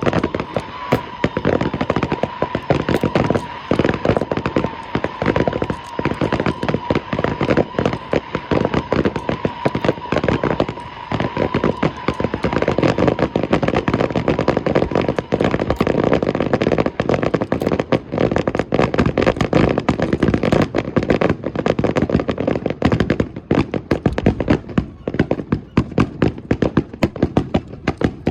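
Aerial fireworks barrage: a dense, unbroken stream of rapid cracking shell bursts. A steady tone runs under the bursts for about the first twelve seconds, then fades out.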